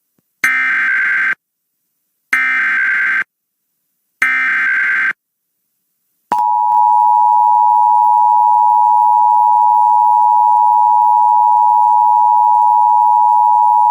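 Emergency Alert System SAME header: three short bursts of warbling digital data tones about a second apart, followed about six seconds in by the loud, steady two-tone EAS attention signal (853 and 960 Hz together). Together they mark the start of an emergency alert broadcast.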